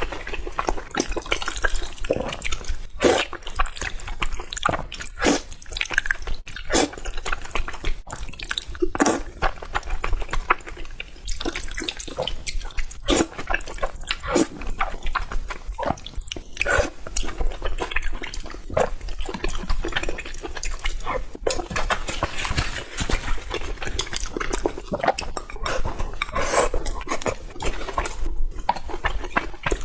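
Close-miked eating: wet chewing, lip-smacking and slurping, a dense run of irregular sharp clicks and wet noises.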